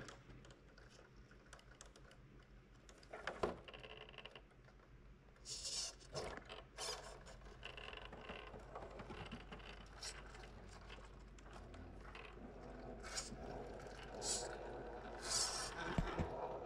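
Radio-controlled rock crawler with a Hobbywing 1800kv brushless motor climbing over rocks: the motor and drivetrain whine in short spurts as the throttle is fed on and off, with tyres and chassis scraping and knocking against the stone.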